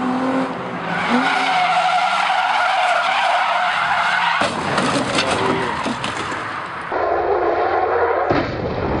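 Car tyres squealing as a car drifts sideways, with its engine revving. The sound shifts abruptly a few times, as between cut shots.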